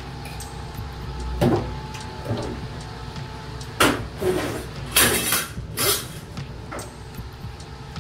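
Handling noises: a run of short knocks and rustles over a steady low machine hum, loudest in a cluster about four to six seconds in.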